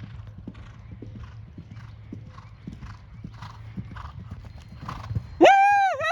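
A horse's hooves drumming at a gallop on turf, with a low rumble under them. About five and a half seconds in, a loud high-pitched call breaks in, held with a wavering pitch.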